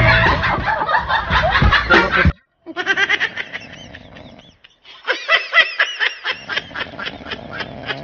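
A person laughing in quick repeated bursts. It cuts off abruptly a little over two seconds in, then the laughter resumes in two stretches.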